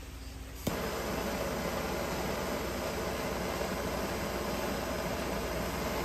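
Handheld gas torch lighting with a click about a second in, then burning with a steady hiss as its flame heats the blades of pruning shears to sterilize them.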